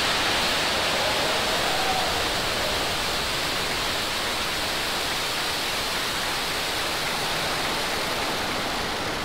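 Falcon 9 first stage's nine Merlin 1D rocket engines running just after liftoff: a loud, steady rush of exhaust noise that eases slightly near the end as the rocket climbs away.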